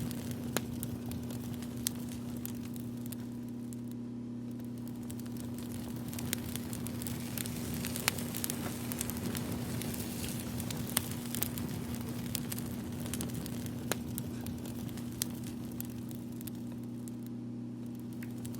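Wood fire crackling: scattered sharp pops over a steady hiss, with a low steady hum underneath.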